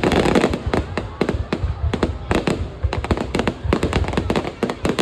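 Fireworks going off in rapid irregular succession: many sharp cracks and pops, several a second, over a continuous low booming rumble.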